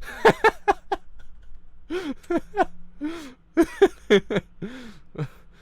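A man's voice making a run of short wordless vocal sounds, each a brief cry that rises and falls in pitch, with short gaps between them.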